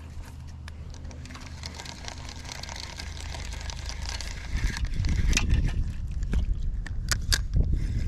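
Spinning reel being cranked, its gears whirring as the line is wound in, with rod-handling noise that grows louder after about five seconds and a few sharp clicks near the end.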